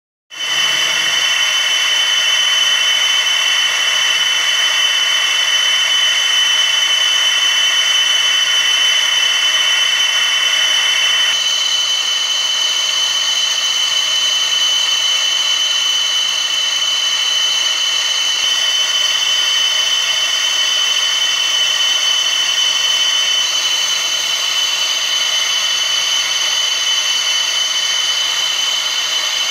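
Laser engraving machine running steadily as it ablates a relief into a polymer gun frame: a continuous high whine over a hiss, its tone changing slightly about eleven seconds in.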